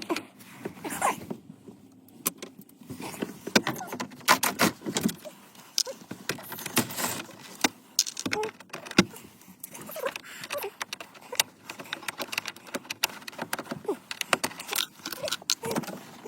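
Metal radio removal keys clicking, scraping and rattling in the dashboard while the old car radio is being worked loose: many irregular sharp clicks and short rattles.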